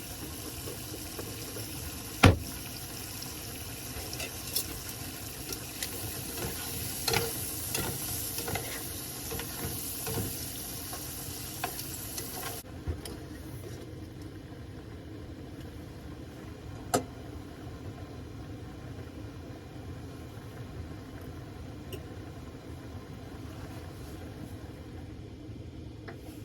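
Food sizzling in a pan on a portable camp stove, a steady hiss with scattered knocks and scrapes of a utensil against the pan. The hiss drops away suddenly about halfway through, and a single sharp knock comes near the three-quarter mark.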